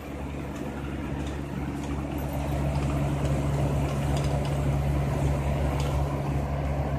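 Box fan of a homemade evaporative (swamp) cooler running with a steady hum, with water trickling through its wet pad; it grows louder over the first three seconds or so.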